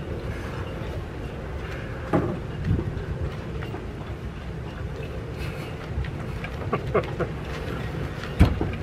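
Wind buffeting the microphone in a low rumble, with a faint steady hum and a few short knocks, the loudest near the end.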